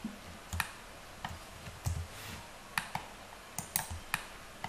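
Computer keyboard keys and mouse buttons clicking, several separate sharp clicks at irregular intervals, as Blender shortcut keys are pressed to extrude and place bones.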